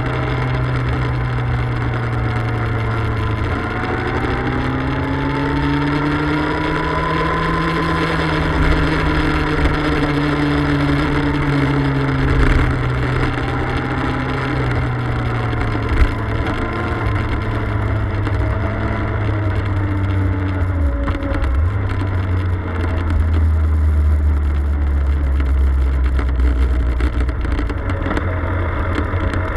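Motorcycle engine heard close up while riding, its note rising and falling with the throttle through the corners, with wind rushing over the microphone. In the last third it drops to a low, steady note as the bike slows.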